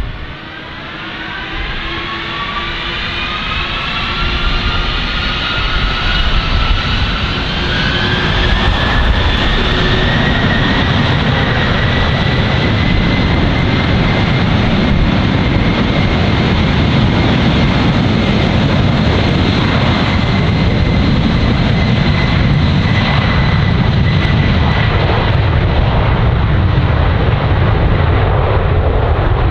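Boeing 747's four turbofan engines spooling up from idle to takeoff thrust: several whining tones rise steadily over the first ten seconds as the sound grows louder. It then settles into a loud, steady roar with a high whine held on top as the jet starts its takeoff roll.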